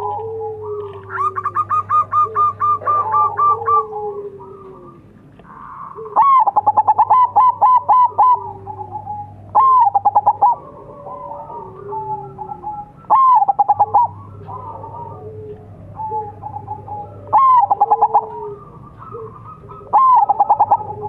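Zebra dove (perkutut) singing: five loud cooing phrases, each a short gliding note and a quick run of staccato notes, repeated about every four seconds, with softer calls in between.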